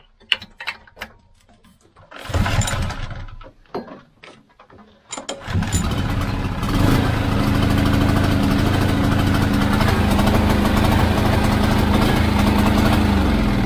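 Briggs & Stratton Vanguard 6 HP single-cylinder OHV petrol engine on a generator, pull-started with the clatter of a couple of pulls, catching about five seconds in and then running steadily. It is still not running right after a spark plug clean, which the owner puts down to a fuel problem, possibly running too rich.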